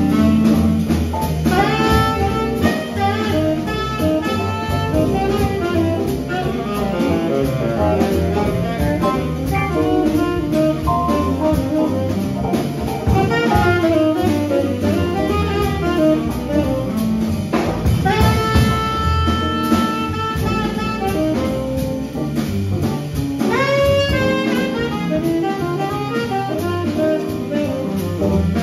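Small jazz band playing live: saxophone phrases over archtop electric guitar, keyboard, upright bass and drum kit.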